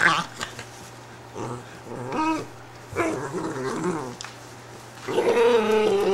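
An Italian greyhound growling and grumbling in several short bouts, the longest and loudest starting about five seconds in. She is upset at being handled and moved while lying in her bed.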